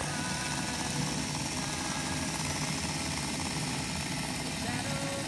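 N scale model train running on the layout track: a steady mechanical hum from the small locomotive motor and rolling wheels.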